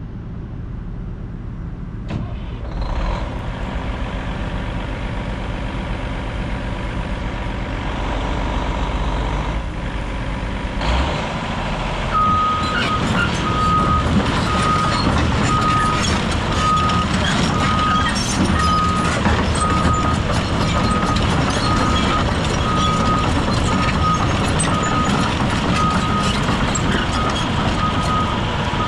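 2013 Cat 349 EL excavator's diesel engine running steadily. About twelve seconds in, a travel alarm starts beeping a little more than once a second as the machine moves on its tracks.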